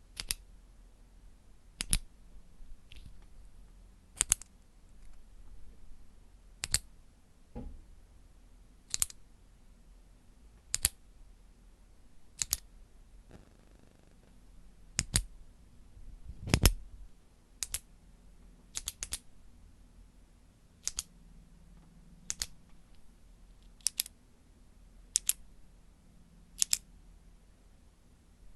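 Retractable pen clicked over and over: sharp little clicks, mostly in quick pairs, every one to two seconds.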